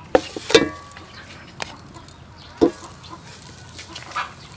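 A spoon knocking and scraping as butter is scooped from a plastic tub into an aluminium pot, a few sharp knocks in all, with a chicken clucking briefly about half a second in.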